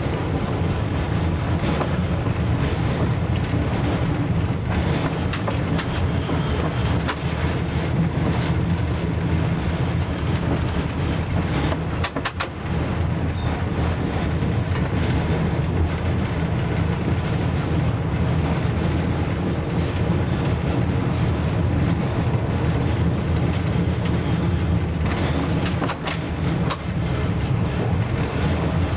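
A DR class 771/772 'Ferkeltaxe' diesel railbus runs along a curving branch line with steady engine and running noise. A high wheel squeal comes and goes on the curves, and a few rail-joint clatters come through, clearest about twelve seconds in.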